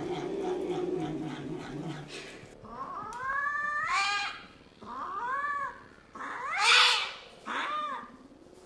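A cat growling in a low, drawn-out, pulsing moan. Then a cat in a cone collar yowls four times in distress while held down, each cry rising then falling, the third the loudest.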